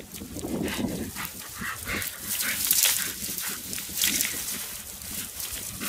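A Bernese mountain dog rolling on its back in dry grass and reeds, the stalks rustling and crackling, loudest in the middle. Short vocal sounds from the dog come near the start.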